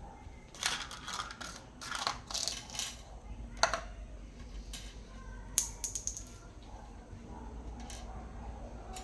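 A run of clicks, scrapes and clatter, like small hard parts or tools being handled, with two sharp clicks about three and a half and five and a half seconds in, over a steady low hum.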